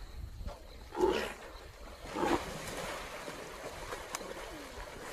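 Two short, loud animal cries about a second apart, then a single sharp click.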